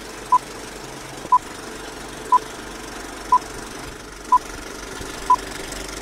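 Film-leader countdown: a short beep once a second, six in all, over a steady hiss.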